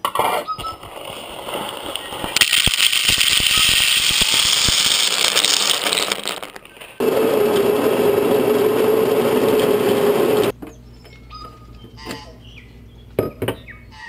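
Electric coffee grinder running with a steady motor tone for about three and a half seconds, then cutting off suddenly. Before it comes a few seconds of loud, steady hissing rush, and after it light clicks and clinks of kitchen gear.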